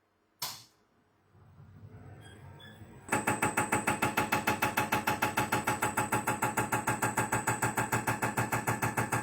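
Common-rail diesel injector from a Dongfeng Longqing 465 firing on a test bench: a click, the bench pump starting up with a low rising hum, then from about three seconds in a rapid, even train of injection clicks over a steady high whine. This is the idle-delivery test, in which this injector delivers 6.5 against a standard of 10 to 12, too little, enough to cause hard starting.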